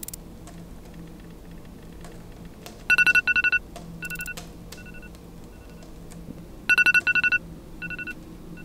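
Wake-up alarm beeping: a quick burst of four short two-tone beeps about three seconds in, then fainter beeps trailing off, and the same pattern repeating about four seconds later.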